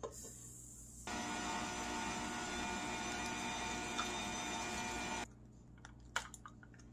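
Cuisinart stand mixer running with its wire whisk creaming butter and sugar: the motor starts about a second in with a steady whine and stops suddenly about four seconds later. A few light clicks follow near the end.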